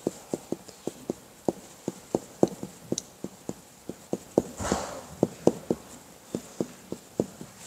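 Marker pen on a whiteboard as characters are written stroke by stroke: a quick, irregular run of short taps, about three or four a second.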